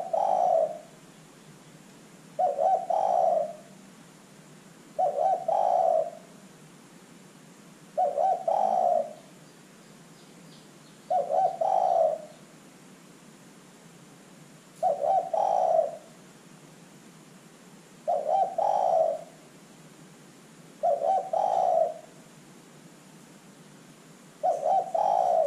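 Spotted dove (tekukur) cooing: a short, low coo phrase about every three seconds, each lasting under a second, repeated evenly.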